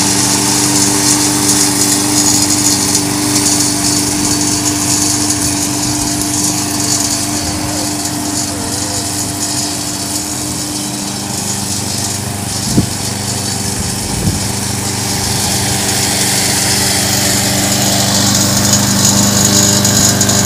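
Gasoline walk-behind lawn mower engine running steadily, somewhat quieter in the middle stretch and louder again near the end. Two sharp knocks a second and a half apart come about two-thirds of the way through.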